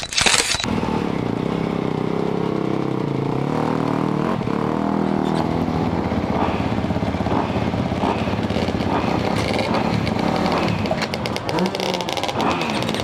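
KTM 250 SX-F single-cylinder four-stroke motocross engine running steadily at idle, after a short loud crash-like burst of noise that cuts off about half a second in.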